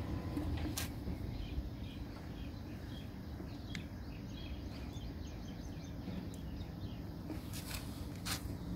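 Outdoor background of a steady low rumble with faint bird chirps, and a few light clicks and knocks from PVC pipe fittings being handled, a small cluster near the end.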